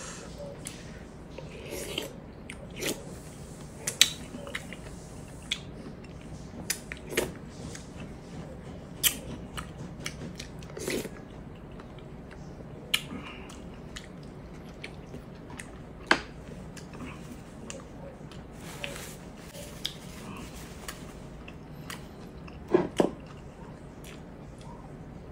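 Close-miked eating sounds: chewing and mouth noises, with short sharp clinks of a spoon against a glass bowl scattered through, a cluster of louder ones near the end.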